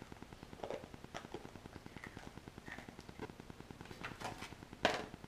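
A few light knocks and clicks of plates and utensils handled on a table, the sharpest near the end.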